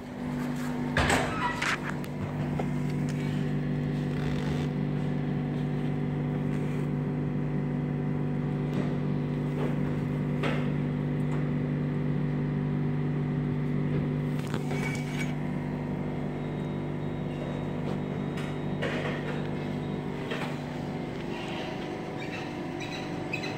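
Heavy truck's diesel engine idling steadily, heard up close at the open engine bay, with a few brief knocks.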